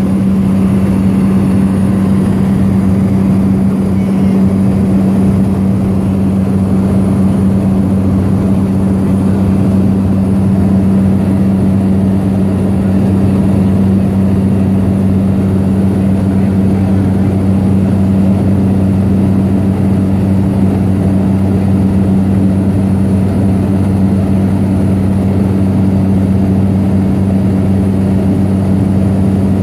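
Floatplane's propeller engine in cruise, heard from inside the cabin: a loud, steady drone with a strong low hum that holds one pitch throughout.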